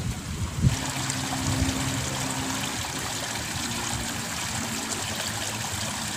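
Water flowing and trickling along a small irrigation ditch, a steady rushing hiss. A low thump on the microphone comes just under a second in.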